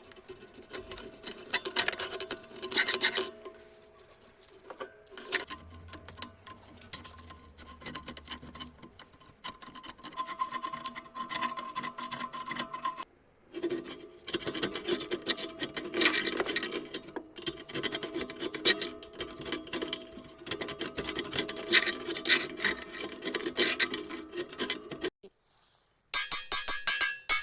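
Abrasive scraping and rubbing on the steel body of a rocket stove being restored, in uneven hand strokes, broken by two short cuts.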